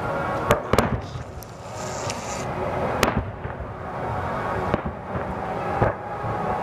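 Distant aerial fireworks bursting: sharp bangs, two close together about half a second in, one about three seconds in and two more near the end, with a brief hissing crackle around two seconds in.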